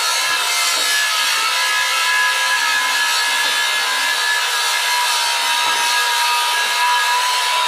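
Angle grinder cutting or grinding steel, running steadily under load with a continuous high whine.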